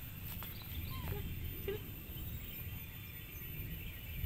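Outdoor background noise with a steady low rumble and a few short, arched squeaking calls, about a second and 1.7 seconds in.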